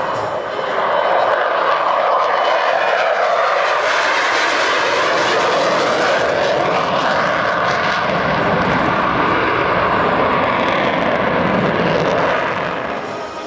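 F-16 Fighting Falcon jet passing low and climbing away. Its engine noise builds within the first second and holds loud for about ten seconds, a dense rushing sound with slowly sweeping up-and-down tones, then eases off near the end as the jet draws away.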